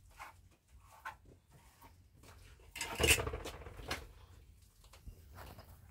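Hands smearing and patting wet mud plaster onto a cinder-block wall, in scattered short scrapes and slaps. A louder brief noise comes about three seconds in.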